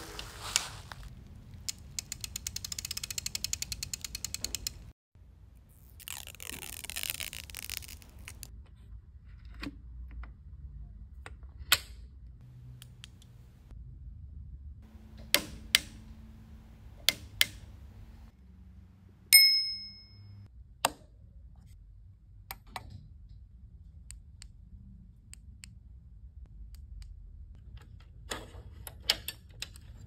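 Close-up mechanical sounds of an Italwin Travel e-bike being handled. The rear wheel's freewheel ratchets in a rapid run of clicks for about three seconds and the wheel spins with a whoosh. Then come single sharp clicks of the Shimano Deore thumb shifter, and a bright ringing ding about two-thirds of the way through.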